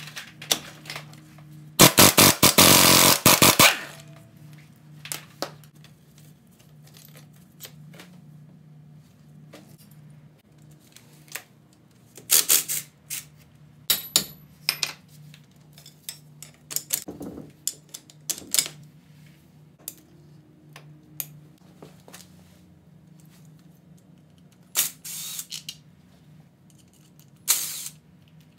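Tools at work on a dirt bike: metal clinking, scraping and clicking, with a power tool running in a loud rapid stutter for about two seconds near the start and shorter bursts of tool noise later. A steady low hum sits underneath.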